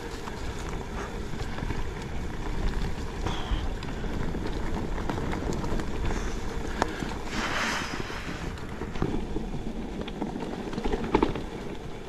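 Wind buffeting an action camera's microphone as a steady low rumble, with scattered clicks and knocks and a brief rushing hiss about seven and a half seconds in.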